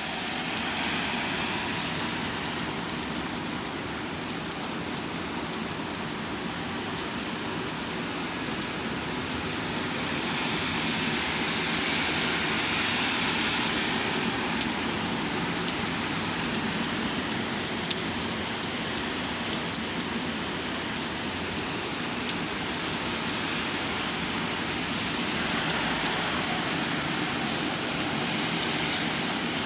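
Steady rain with a constant hiss and many fine drop ticks scattered through it.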